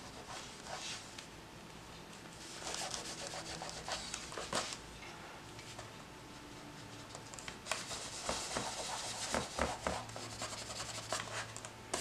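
A white Gelato water-soluble crayon stick rubbed on paper in short, scratchy strokes, in two bursts with a pause between, plus a few light clicks in the second burst.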